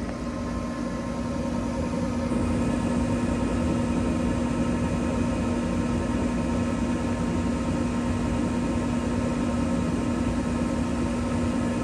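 2019 Carrier Performance Series 80% gas furnace starting up: its draft inducer motor runs with a steady hum that builds over the first two seconds. A steady hiss joins about two seconds in.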